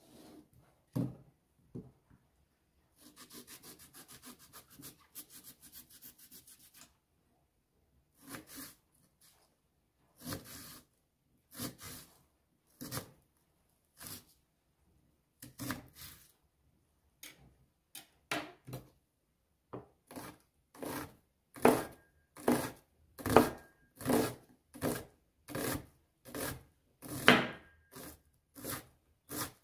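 A kitchen knife slicing and then dicing a peeled onion on a wooden cutting board: single crisp strokes through the onion down onto the board, about one a second, growing louder and a little quicker in the second half. About three seconds in come a few seconds of rapid scraping.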